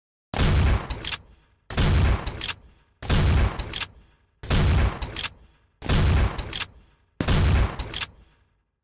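Remington Model 870 Police Magnum pump-action shotgun fired six times, about one and a half seconds apart. Each loud blast dies away over about a second, with quick clicks just after it as the pump is worked.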